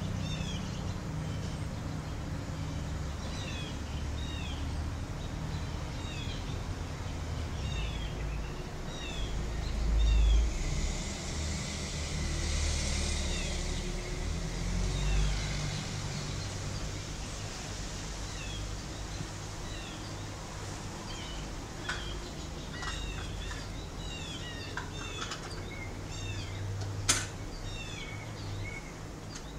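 Small birds chirping: many short, downward-sliding high notes repeated over and over, over a steady low rumble. A swell of rushing noise rises and fades about ten to fifteen seconds in, and there is a sharp click near the end.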